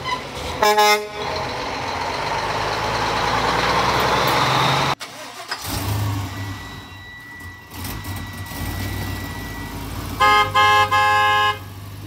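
Truck horns honking at a roadside: one short blast about half a second in, followed by the rising road noise of a vehicle passing close. Near the end come three quick horn toots in a row, the last one held a little longer.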